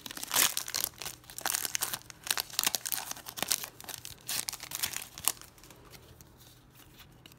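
Silver foil wrapper of a Panini Prizm football card pack crinkling and crackling as it is torn open and the cards are pulled out. The crackling stops a little past five seconds in.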